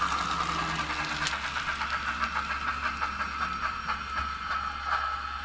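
Sound decoder in an N-scale model of the Union Pacific 844 steam locomotive, playing recorded 844 sounds through a small speaker. The exhaust chuffs come further apart as the model coasts to a stop under its programmed momentum, over a steady steam hiss.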